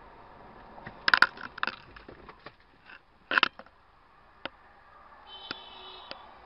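Crunching impacts of a vehicle collision: a cluster of sharp crashes about a second in and another loud crunch a little past three seconds, followed by a few lighter knocks. A brief high tone comes near the end.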